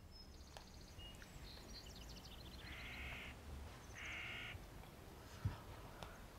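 A crow cawing twice, harsh calls about a second apart, with faint small-bird chirps before them and a single light knock near the end.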